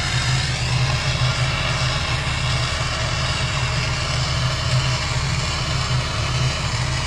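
Handheld gas torch flame burning steadily with a low, even rushing rumble while it heats a fluxed copper sheet toward annealing temperature.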